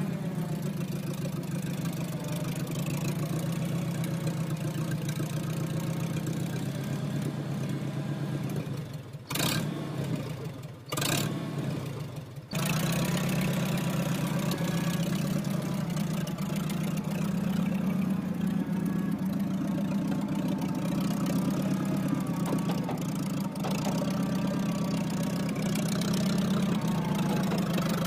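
Engine of the machine used to lift and move the backhoe's front end, running steadily, with a few brief drops in sound about nine to twelve seconds in.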